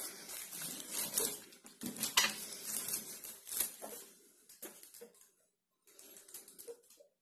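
Handling noise of a wooden suitcase record player being lifted and turned over: crinkling of its plastic protective film, with light knocks and clicks from the case, stopping for a moment before the end.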